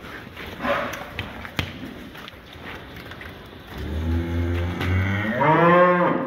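Cattle in a pen: knocks and shuffling, then about four seconds in one long low moo that rises in pitch and falls away again near the end.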